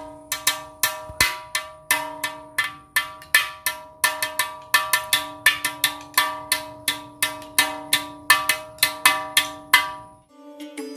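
An Onavillu, the Kerala Onam bow instrument held against the chest, struck with a thin stick in a fast, even rhythm of about four strokes a second. Each stroke is a sharp tap that rings on a few steady pitches. The strokes stop about ten seconds in.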